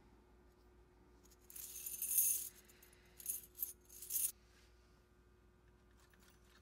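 A handful of loose metal key blanks jingling together as they are shuffled in the palm: a dense jingle of about a second, then three shorter clinks a second or two later.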